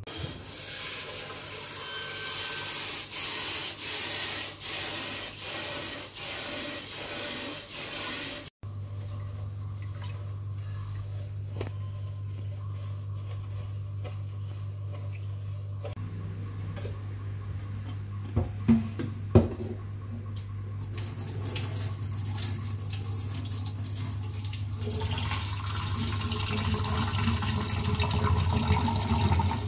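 Water and hand sounds at a stainless steel kitchen sink: first a wet metal tray is rubbed by hand in rhythmic strokes, then rice is swished and rinsed by hand in a rice cooker's inner pot, with two sharp knocks of the pot against the sink partway through. Near the end, tap water runs into the pot, growing louder. A steady low hum lies underneath.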